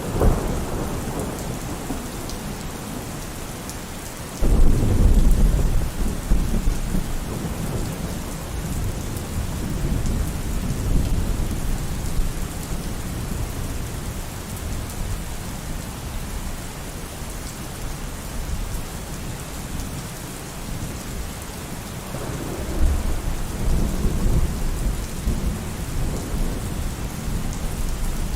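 Steady rain in a thunderstorm. A loud clap of thunder breaks about four and a half seconds in and rolls on for several seconds, and another long low rumble of thunder swells near the end.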